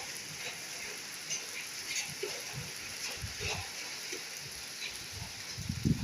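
Steady rain with scattered drops ticking sharply. Near the end come a few louder, irregular low thumps.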